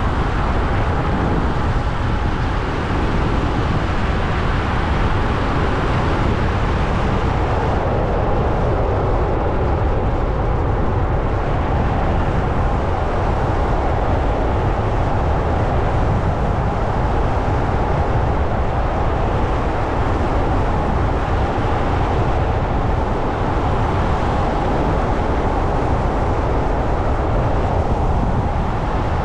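A car driving along a paved road, its engine and tyres making a steady noise that holds even throughout.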